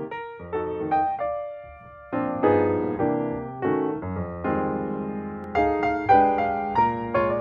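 Background piano music: sparse single notes at first, then fuller chords from about two seconds in.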